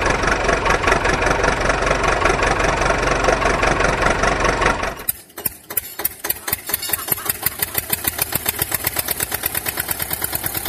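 Tractor engine sound, running steadily for about five seconds. It then changes abruptly to a slower, regular chugging idle with several knocks a second.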